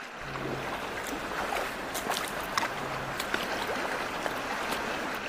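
Shallow, rocky stream running over stones, an even rush of water. A few sharp splashes stand out from it as rubber boots wade through the current.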